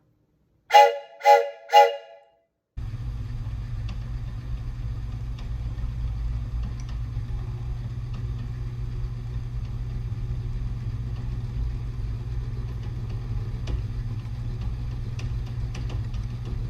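Three short blasts of a homemade copper-and-aluminum train whistle, each sounding several notes at once as a chord, about half a second apart. After a brief silence, a steady low machine hum with faint scattered ticks starts about three seconds in.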